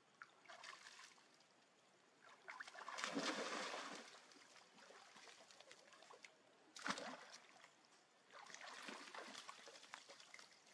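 Faint splashing and trickling of pool water, with a louder stretch of splashing about three seconds in and a short, sharp splash about seven seconds in.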